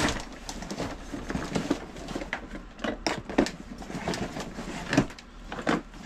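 Hard plastic tool organizer cases knocking and clattering as they are handled and stacked into a canvas gym bag: a run of irregular clicks and knocks over a soft rustle of canvas.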